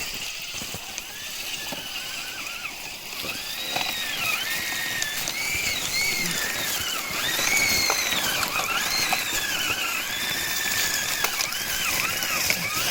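An RC rock crawler's electric motor and geartrain whining, its pitch rising and falling over and over as the throttle is worked on a hill climb.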